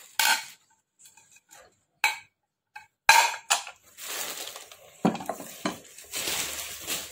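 Plates clinking against each other as they are handled and stacked, several sharp separate clinks, then the rustle of plastic wrapping and a couple of duller knocks as a plate is set down on the table.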